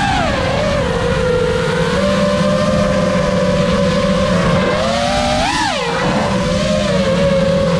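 FPV quadcopter's motors and propellers whining steadily, with one quick rise and fall in pitch about five and a half seconds in.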